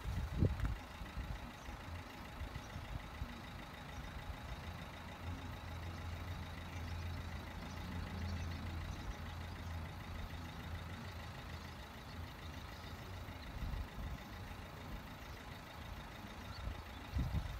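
Low, steady engine rumble of a road vehicle that swells slightly around the middle and then eases off.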